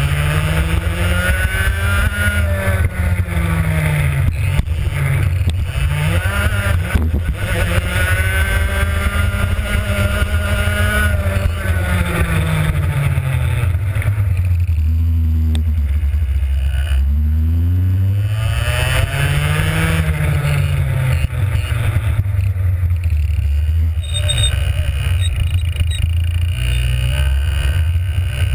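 Two-stroke racing kart engine at full throttle, heard onboard, its pitch climbing along the straights and falling off for the corners several times over a steady hiss.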